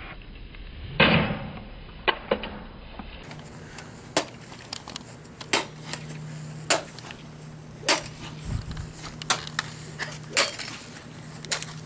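Golf clubs striking a plastic video game lying on grass: about a dozen sharp cracks, roughly one a second, the loudest about a second in.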